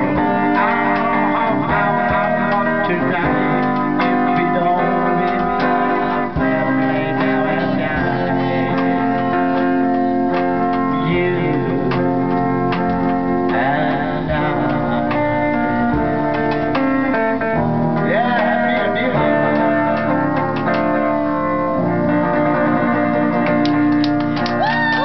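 A guitar played live with men singing along to it.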